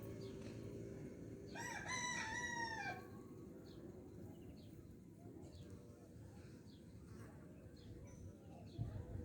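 A rooster crows once, a single call of about a second and a half that starts shortly after the beginning, with faint small-bird chirps throughout. A low thump comes near the end.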